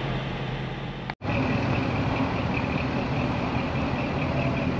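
Car driving slowly: steady engine and road noise heard inside the cabin, then, after a brief dropout about a second in, louder and steadier engine and road noise from outside the car.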